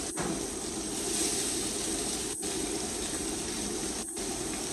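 Steady hiss of shrimp searing in very hot oil in a wok over a commercial gas burner, briefly cutting out three times.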